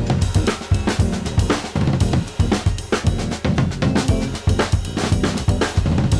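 Background music with a steady drum-kit beat: kick, snare and cymbals over bass.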